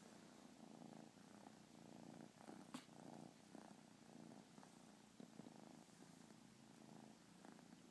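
Tabby kitten purring faintly and steadily in a soft, pulsing rhythm. A single sharp click a little under three seconds in.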